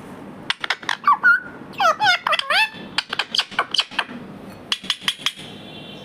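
Indian ringneck parrot giving a rapid string of short squawks and chirps, several of them rising sharply in pitch, mixed with quick clicks of its beak tapping on a plate.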